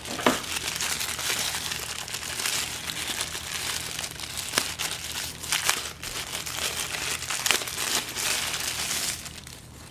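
Plastic packaging crinkling and rustling as the parts of a backup camera kit are unwrapped, with a few sharp clicks. It dies down near the end.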